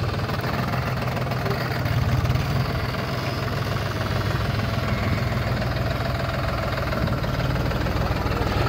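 Diesel tractor engine running steadily with a rapid, even knock while it powers a front-mounted Bull loader raising a bucket of soil.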